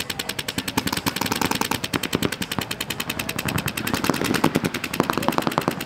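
Electronic paintball markers firing rapid, continuous streams of shots, a fast, even crackle of about a dozen pops a second.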